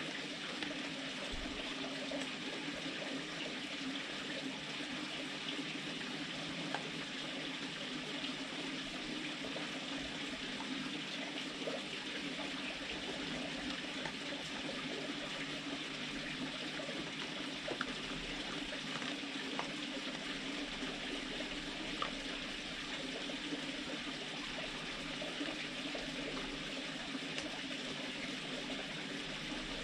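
Red fox crunching dry food from a steel bowl: faint scattered crunches and clicks over a steady hiss like running water.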